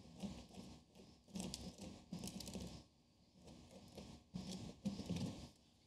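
Fingertips rubbing and picking dried silicone off pumice rocks: faint, irregular scratching in several short spells with brief pauses between them.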